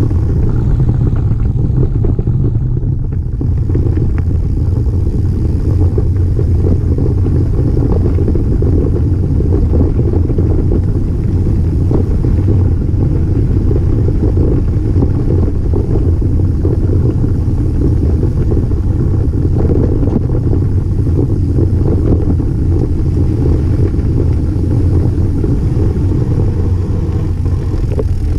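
Steady low rumble of a bicycle ride down a dirt track, picked up by a camera riding along: mostly wind buffeting the microphone, mixed with rough-surface rolling noise.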